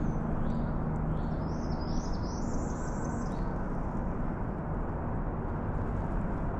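A songbird calling, a quick run of short chirps rising in pitch over the first three seconds, against a steady rushing background noise.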